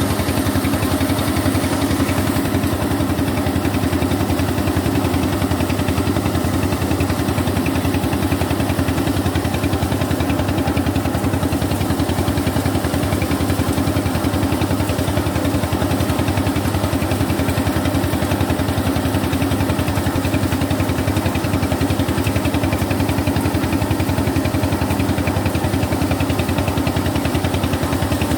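Bean-threshing machine running steadily: a continuous mechanical drone with a fast, even pulse.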